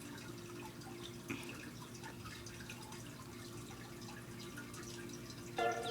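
Faint room background: a steady low hum with scattered light ticks like dripping. Near the end a distant voice starts.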